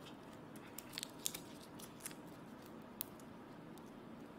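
Thin plastic wrapping being peeled by hand off a roll of washi tape: faint crinkling with a few sharp crackles, around one second in and again about three seconds in.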